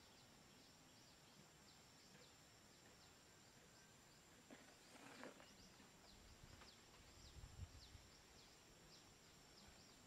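Faint clatter of a wire fan-guard trap snapping shut over a pigeon about five seconds in, followed by soft low thumps, over a steady high insect whine and short repeated chirps.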